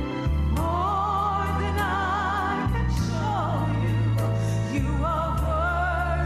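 A gospel song: a woman's voice singing long, wavering held notes over a sustained bass accompaniment.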